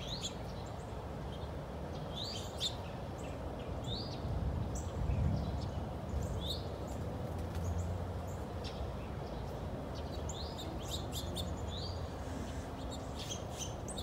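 Small songbirds at backyard feeders chirping: short, scattered, rising chirps every second or so, over a steady low rumble.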